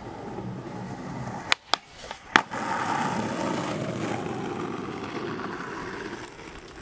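Skateboard wheels rolling on concrete. About a second and a half in, three sharp clacks of the board hitting the ground come in quick succession, the last the loudest, and then the wheels roll on, louder.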